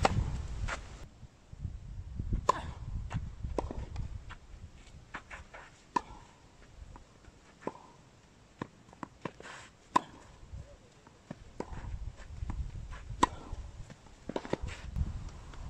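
Tennis balls struck by a racket every few seconds in a clay-court hitting session, each hit a sharp pop, with smaller ball bounces and shoes scuffing on the clay in between.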